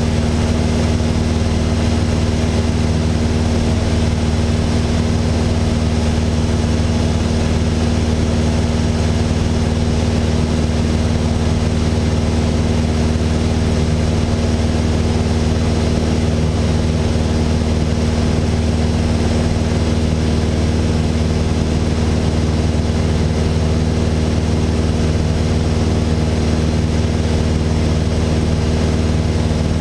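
Mooney M20J 201's four-cylinder Lycoming IO-360 engine and propeller running steadily in flight, heard inside the cockpit as an even, unchanging drone.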